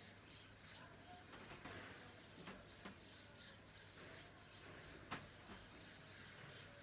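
Near silence: a faint low hum with a few weak, scattered ticks, the clearest about five seconds in.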